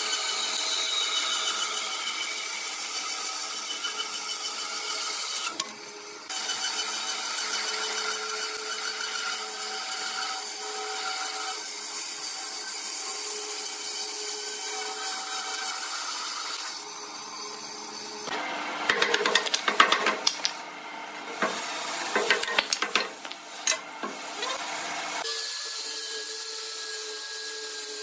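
A band saw runs and cuts slowly through a thick wooden block, a steady whine and hiss of blade and wood. About two-thirds of the way in come several seconds of irregular loud knocks and rattles. Near the end a different machine takes over with a steady higher whine: an angle grinder with a sanding drum on the wood.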